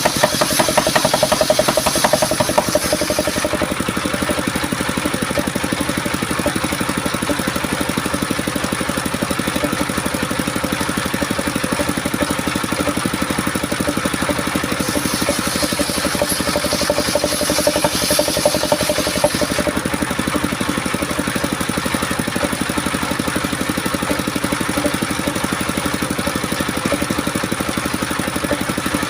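Engine-driven homemade circular sawmill running steadily, its blade sawing coconut-palm wood with a bright hiss for the first few seconds and again for about five seconds past the middle.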